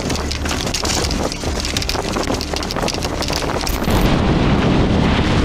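Wind rushing over a motorcyclist's camera microphone, with a vehicle running underneath and short knocks or handling noises. The sound changes abruptly about four seconds in, to a louder, deeper rumble of wind.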